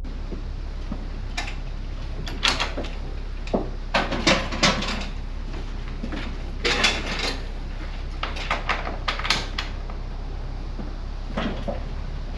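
Irregular clattering knocks and clicks in short clusters, over a steady low hum.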